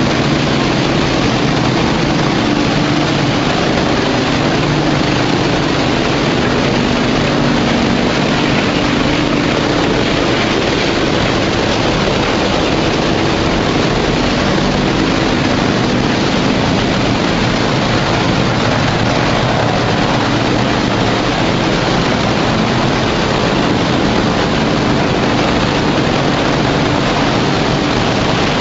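Tire recycling line machinery running: a loud, steady mechanical noise with a low hum underneath.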